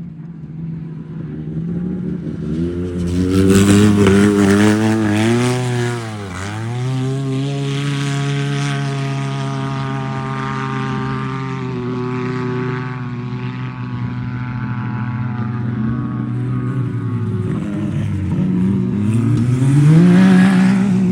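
Off-road racing UTV engine running hard. Its revs climb over the first few seconds, dip sharply and pick back up about six seconds in, hold high and steady, then climb again near the end, where it is loudest.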